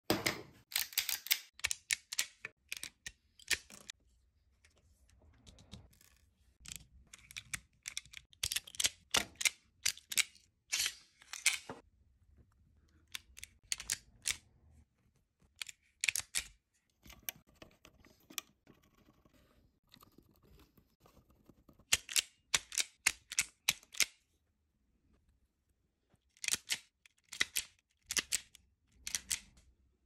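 Knipex NexStrip electrician's multi-tool clicking and snapping as it strips wires and crimps ferrules onto them: sharp mechanical clicks in quick runs, with pauses of a few seconds between them.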